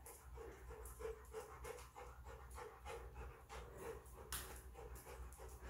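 A dog panting softly and steadily, about three to four breaths a second.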